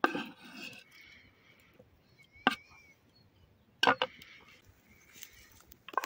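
Cooking utensils knocking: four sharp wooden knocks a second or more apart, the third a quick double knock.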